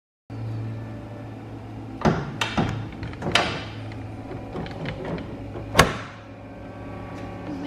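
BMW E46 hood being lowered and pushed shut: a few knocks and clicks, a louder ringing clunk about three and a half seconds in, and a sharp snap near six seconds as it is pressed down to latch, over a steady low hum.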